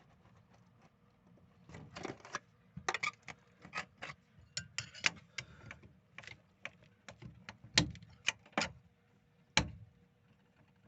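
Irregular light metallic clicks and knocks of metal parts being handled and tapped, in loose clusters, with a few sharper knocks near the end.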